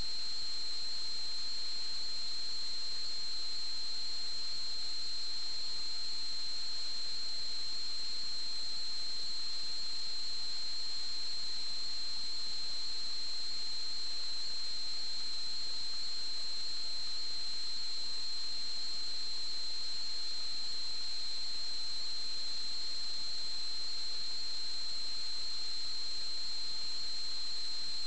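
Steady high-pitched electronic whine over a constant hiss, unchanging throughout: electrical noise on the audio line of a sewer inspection camera recorder that is getting no video signal.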